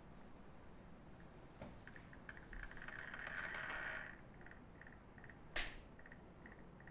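Faint room sound with a soft click, a brief swelling hiss, and one sharp click about five and a half seconds in.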